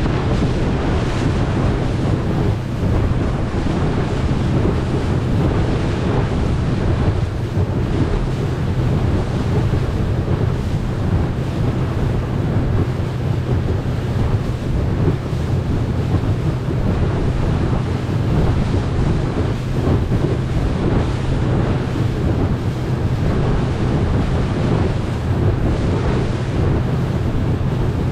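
Motorboat under way, its engine a steady low drone beneath wind buffeting the microphone and water rushing past the hull.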